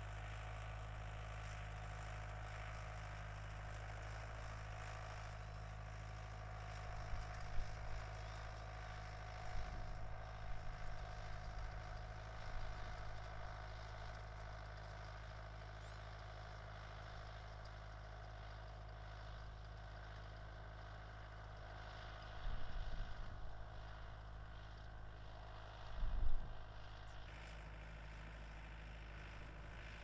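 Steady low background hum like distant engines, with a few short, irregular low rumbles, the loudest near the end.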